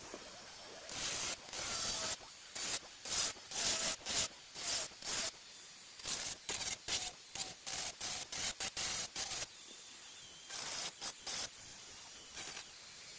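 Dremel rotary tool with a fine sanding drum grinding hardened JB Weld epoxy on a plastic barometer housing. The sanding noise comes in many short, irregular bursts as the drum is touched to the work and lifted, over a thin, steady, high motor whine. The footage is sped up five times.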